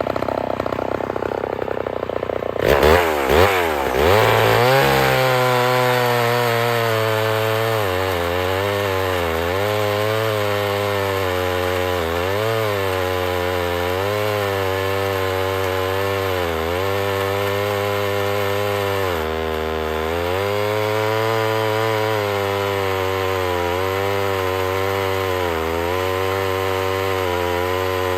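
Homelite XL-12 two-stroke chainsaw with a 24-inch bar cutting through a log at full throttle. The engine revs up and down over the first few seconds, then its note is pulled down under the load of the cut and wavers as it labours through the wood.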